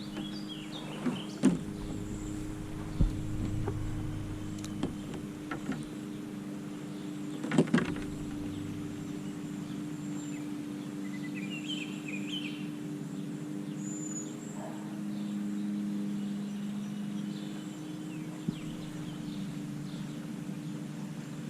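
A steady low hum runs throughout, with a few sharp knocks, the loudest about a second and a half in, at three seconds and at seven and a half seconds. A bird chirps briefly about halfway through.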